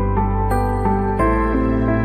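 Background music: sustained chords over a steady low bass, a melody stepping from note to note, the harmony shifting about a second in.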